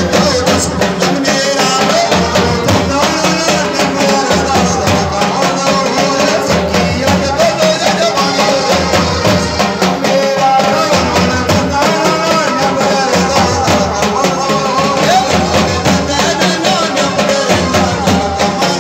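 Live Gujarati garba folk music: male singers' voices over a dhol drum and other percussion keeping a steady, fast dance beat.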